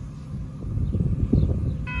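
Low, uneven rumbling noise; a little before the end, a railroad grade-crossing bell starts ringing as the crossing signals activate for an approaching train.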